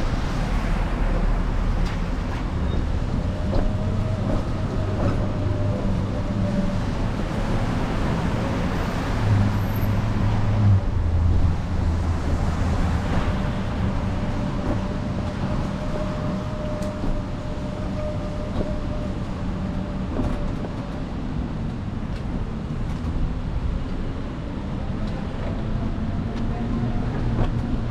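Street traffic noise on wet roads: steady tyre hiss with the low hum of passing vehicles, heavier for a few seconds near the middle.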